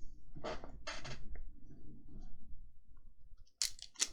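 Pokémon trading cards being handled and slid past one another as a pack is flipped through: a few short papery swishes and rustles.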